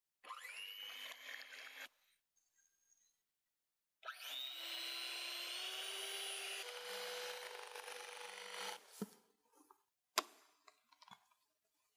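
Electric hand mixer whipping egg whites into meringue. It runs in two stretches, a short one of under two seconds and a longer one of about five seconds, and each starts with a rising whine as the motor speeds up. A few light clicks and knocks follow near the end.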